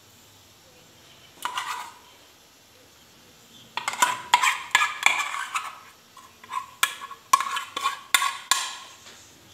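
Metal spoon clinking and scraping against a glass baking dish as pasta is stirred and levelled: one brief clink about a second and a half in, then a quick run of ringing clinks from about four seconds until near the end.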